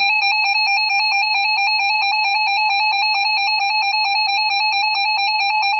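Emergency Alert System attention signal: a loud, steady, buzzy electronic alert tone that does not waver, announcing the severe thunderstorm warning that follows.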